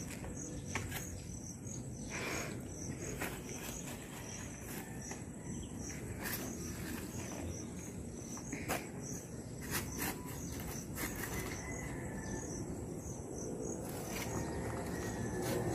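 Insects chirping steadily, a rapid run of short high chirps, with scattered knocks and scrapes of a shovel digging into soil.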